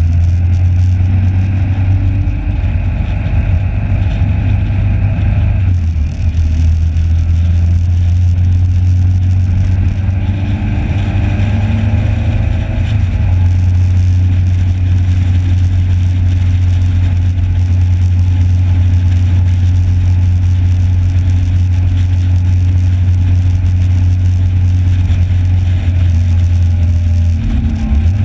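Motorcycle engine running steadily at track speed, heard from on board with wind and road noise; its note shifts briefly about six seconds in.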